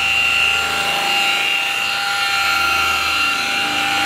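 Variable-speed high-speed rotary buffer with a yellow wool pad, running steadily against a painted car panel with a constant high motor whine. This is the first, cutting-compound step of buffing out color-sanding scratches.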